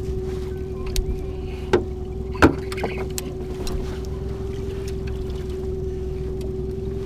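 Boat motor running with a steady hum over a low rumble, with a few sharp knocks on the boat, the loudest about two and a half seconds in.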